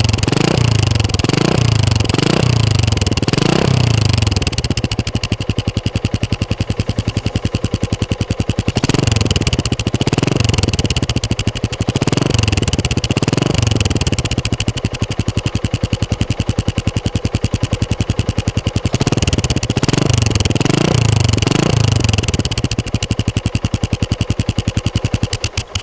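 Yamaha LC135's single-cylinder four-stroke engine through an aftermarket CJ Ipoh 28 mm cutting-standard exhaust with a baffle stopper fitted in the outlet, idling and blipped in three runs of quick throttle revs, each rev rising and falling, with steady idling between. It is a sound test of whether the stopper tames the exhaust's loud, free-flowing note.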